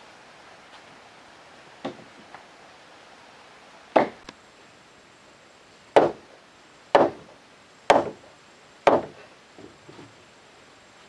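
Wood striking wood: a piece of timber used as a mallet knocks a notched wooden beam to seat a timber-frame joint. There is a light knock about two seconds in, then five hard strikes about a second apart, and a couple of small knocks near the end.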